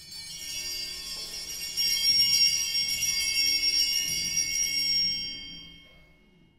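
Altar bells, a cluster of small hand bells, shaken and ringing during the Eucharistic Prayer. They ring at once, get louder about two seconds in, and die away over the last second or two.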